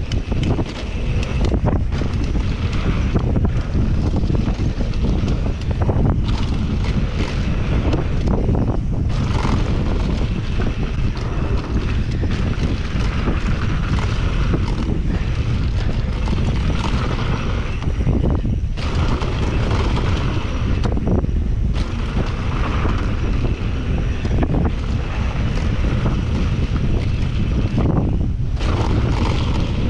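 Wind buffeting the microphone of a camera on a mountain biker riding downhill: a heavy, steady rumble with a rushing hiss that drops back briefly a few times.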